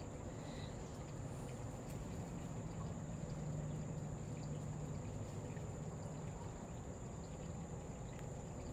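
Steady outdoor background noise: an even hiss with a low hum underneath and no distinct events.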